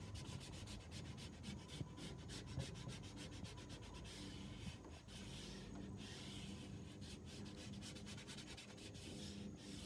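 Hand sanding with 200-grit sandpaper on the plastic hull of a Bonafide SS127 kayak at the keel: quiet, rapid short scratchy strokes, roughing up the slick surface so a keel protector will stick.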